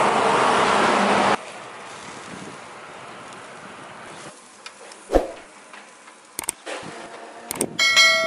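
A loud rushing noise that cuts off abruptly about a second and a half in, then quieter street background with a thump about five seconds in. Near the end, a mouse-click sound effect followed by a ringing bell chime from a subscribe-button animation.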